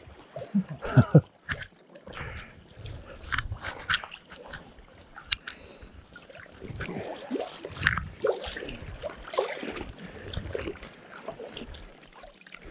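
Shallow water sloshing and splashing as a person wades over stones and moves a hand scoop net through the water, in many short, irregular splashes.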